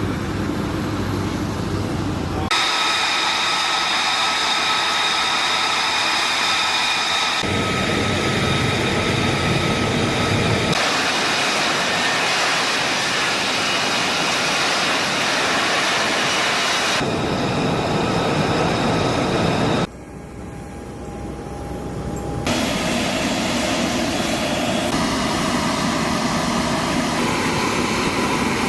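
F-35 Lightning II fighter jet engines running, with a rushing noise and steady high-pitched whine tones. The sound changes abruptly every few seconds and drops quieter for a couple of seconds about twenty seconds in.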